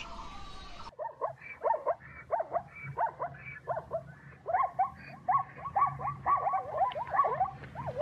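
Zebras calling: a series of short yelping barks starting about a second in, at first one or two a second, then coming faster and overlapping from about halfway through.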